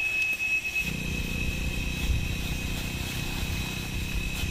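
A small engine running steadily at an even low pitch, coming in sharply about a second in. A thin, high steady whine sounds over it, strongest at the start.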